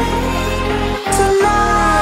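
Electronic background music with a steady bass-heavy beat and sustained synth tones, briefly dipping about a second in.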